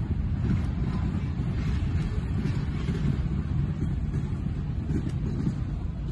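Last cars of a freight train, a hopper car, a flatcar and a caboose, rolling past on the rails, with low rumbling wind buffeting the microphone.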